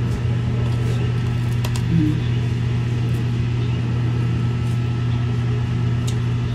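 A steady low mechanical hum that holds level throughout, with a few faint small clicks on top.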